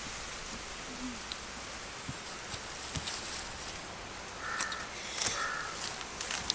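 Faint outdoor ambience with soft knocks of bare feet stepping along a dry fallen tree trunk. Two short animal calls come about four and a half and five seconds in.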